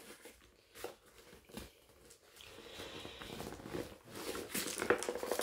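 Hands handling a Funko Pop's packaging: a couple of soft knocks, then rustling and crinkling of wrapping that grows louder near the end as it is being opened.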